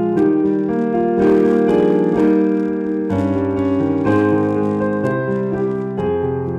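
Kawai digital piano played in held chords over sustained bass notes, the chords changing every half second or so.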